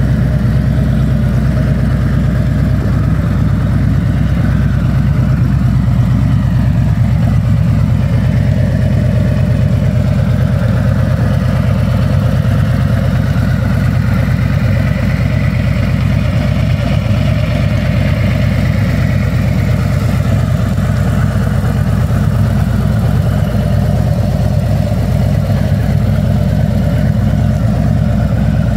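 Harley-Davidson Street Glide Special's 1868 cc Milwaukee-Eight 114 V-twin idling steadily, with no revving.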